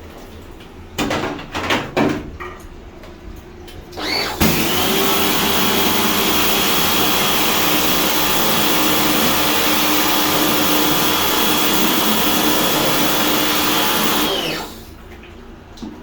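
A motor-driven machine starts up about four seconds in and runs steadily with a high whine over a loud hiss, then shuts off near the end. A few knocks of handling come before it.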